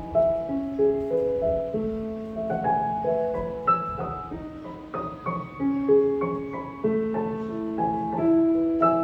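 Background music: a solo piano playing a gentle melody of held, decaying notes.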